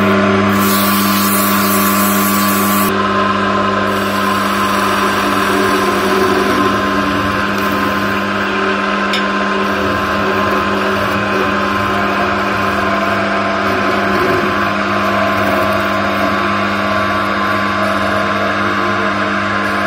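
Wood lathe motor running with a steady hum. For the first three seconds sandpaper hisses against the spinning linden workpiece; after that a turning chisel scrapes lightly along the wood.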